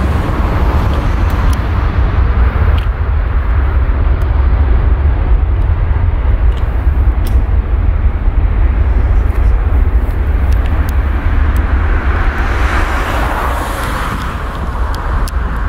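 Jet engines of an Airbus A320-family airliner at takeoff power during its takeoff roll: a loud, continuous rumble with heavy low end, the engine noise swelling higher near the end as the jet nears rotation.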